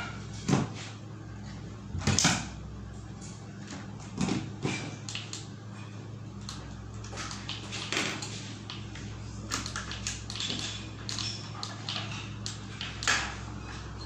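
Irregular clicks, taps and knocks of hands working wires into the terminals of a plastic electrical enclosure, over a steady low hum.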